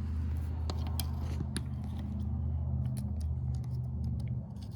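Light metallic clicks of hand tools working at the snap ring on a UTV transmission's output shaft, over a steady low machine hum.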